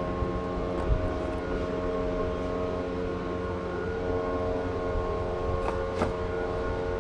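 A steady droning hum with several pitches held together, with a few light clicks and taps as the mass air flow sensor is handled and pushed into the intake housing.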